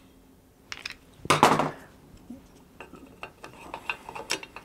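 Small metal parts clinking and clattering as a hose-clamped bush is handled and set into a winch housing, with a louder clatter about a second and a half in and a run of light clicks near the end.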